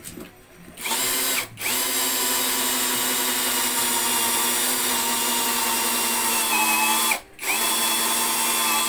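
Cordless drill with a cone-shaped step bit boring into a wooden cabinet panel, its motor whining steadily. It starts about a second in and stops twice briefly, at about a second and a half and near the end, each time spinning back up with a rising whine.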